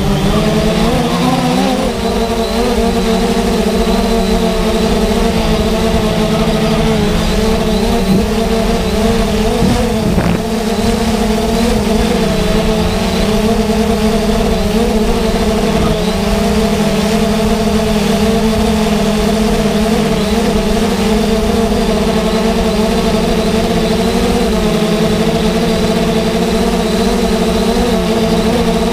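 Quadcopter drone's electric motors and propellers running in flight, a steady whine with several pitches that waver slightly. The pitches shift briefly about a second in and again around ten seconds in. Heard close, from the camera on the drone itself.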